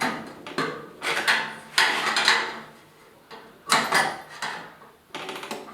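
Irregular sharp metallic knocks and clanks of hand tools working on the sheet-metal housing of an old 8-foot fluorescent light fixture, each with a brief ring.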